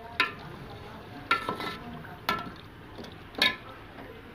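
Metal ladle scraping and knocking against a metal cooking pot as boiled chickpeas are stirred and fried in masala: several sharp scrapes about a second apart over a faint sizzle.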